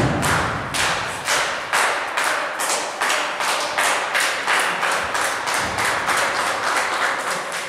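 Live wrestling crowd clapping in a steady rhythm, about three claps a second, with a few dull thuds mixed in.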